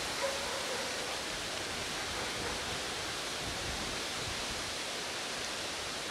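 Steady outdoor background noise: an even hiss with no distinct events standing out.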